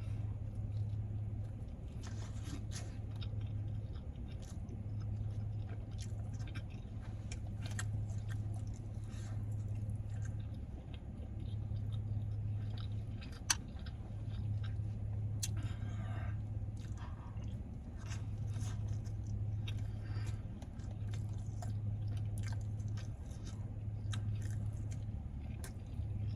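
Close-up chewing and mouth sounds of a man eating naan wrapped around shrimp and rice, with irregular wet clicks and soft crunches, and one sharp click about halfway through. A low hum comes and goes underneath.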